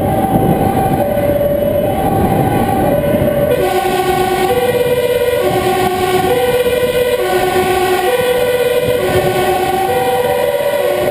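Two-tone emergency sirens of a Dutch fire engine and emergency convoy, switching between a high and a low note about once a second over engine and road noise. About three and a half seconds in, a second two-tone siren at a lower pitch joins and the two patterns overlap.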